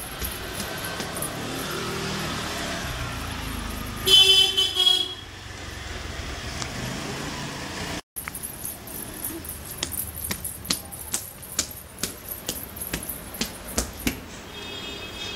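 Street traffic passing, with a vehicle horn tooting loudly for about a second about four seconds in. After a break, a run of light taps and clicks.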